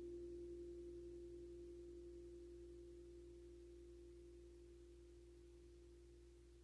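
Faint ringing tone of a struck metal sound-bath instrument, slowly dying away. It holds one steady pitch with a slight wavering.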